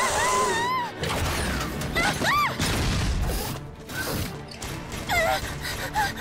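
Cartoon sound effects of a robot dinosaur's mechanical joints whirring and clicking as it moves, mixed with a frightened girl's high, wavering cries that glide up and down in pitch, the first in the opening second and another about two seconds in.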